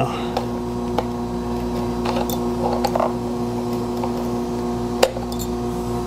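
Steady electrical hum, with a few small clicks and light rustling from hands working the kill-switch wires on the engine; the sharpest click comes about five seconds in.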